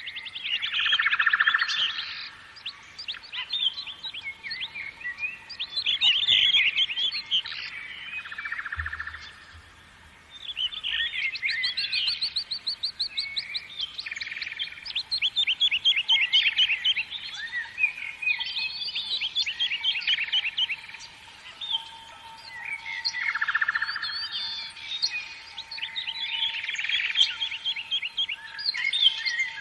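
Several birds singing at once, with overlapping chirps, whistled phrases and rapid trills.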